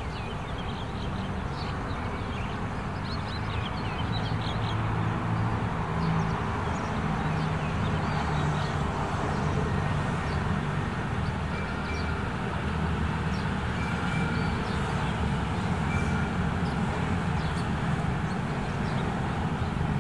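Steady low engine drone around a railway yard, with small birds chirping over it now and then.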